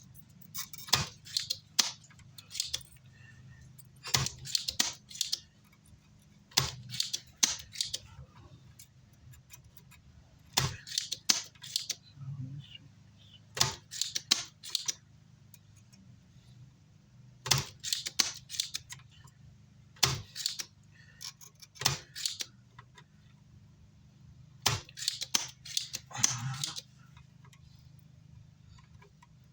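Small metal tools and parts clicking and clattering in short bursts on an electronics repair bench, over a steady low hum.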